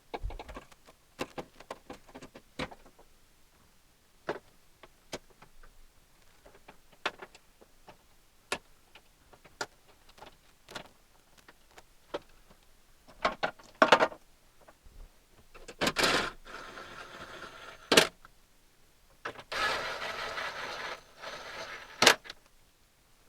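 Scattered light metallic clicks and knocks of bolts and hand tools being worked into a car door, then a small electric motor runs twice near the end, briefly and then a little longer, each run ending in a sharp click.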